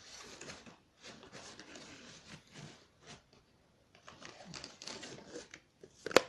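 Packaging of a Bluetooth headset being handled and opened: irregular rustling with light clicks and taps, and a sharper click just before the end.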